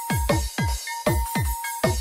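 UK bounce (donk) dance music from a DJ mix: heavy kick drums, each dropping in pitch, hit several times a second. Over them runs a held high synth note with short higher blips.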